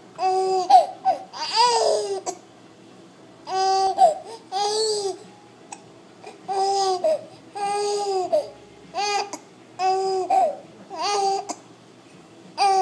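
A hiccuping baby making a string of short vocal sounds, about ten brief calls a second or so apart, each rising and falling in pitch.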